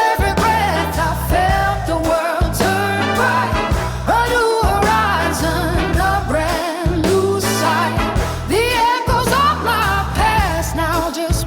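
Pop song with a female voice singing wordless melismatic runs over a steady bass and drum beat.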